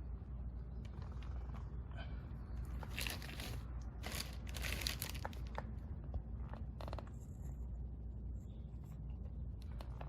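Hands handling parts and packaging: two spells of crinkling and rustling about three and five seconds in, then a few sharp clicks near seven seconds, over a steady low hum.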